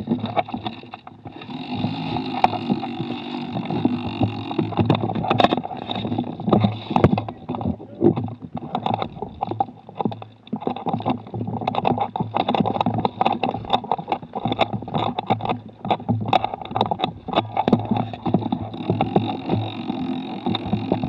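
Handling noise from a camera mounted on an airsoft gun's rail as the gun is carried and moved: irregular knocks and rubbing over a steady rumble.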